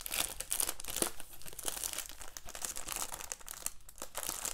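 Clear plastic shrink-wrap being torn and peeled off a Blu-ray case, crinkling and crackling irregularly throughout.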